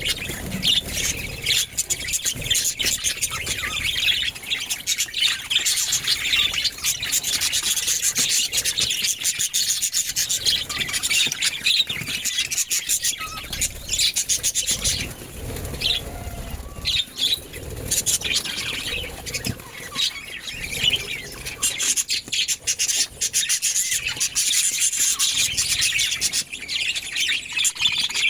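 Budgerigars chattering without a break: a dense, scratchy warble of quick chirps and clicks.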